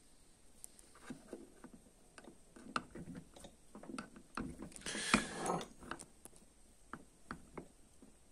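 Light clicks and taps of hands working the linkage of a removed Honda CBR1000RR throttle body, with a louder rustling scrape about five seconds in.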